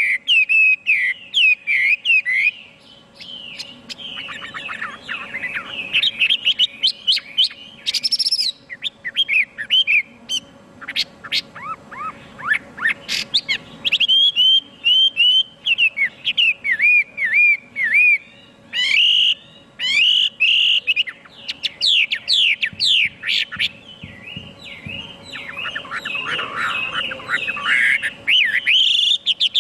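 Chinese hwamei singing a long, varied song of loud whistled phrases: quick runs of repeated notes and fast trills, broken by short pauses.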